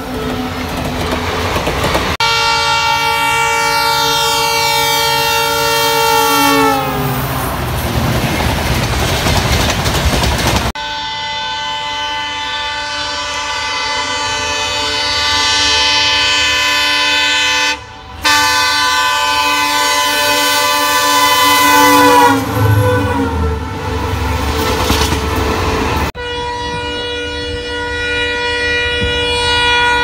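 Indian Railways locomotive horns sounding long multi-note blasts in about four separate clips. In several of them the chord slides down in pitch as the locomotive passes, followed by the rumble and wheel clatter of the passing train.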